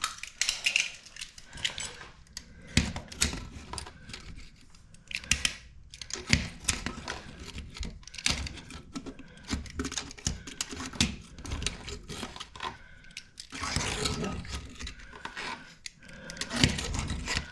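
A knife blade clicking and scraping against a metal drain as debris is dug out of a clogged slow drain, in irregular metallic taps and scrapes.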